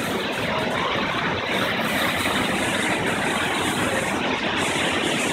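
Steady rush of the Spouting Rock waterfall, water shooting out of the cliff face and splashing onto the rocks at its base.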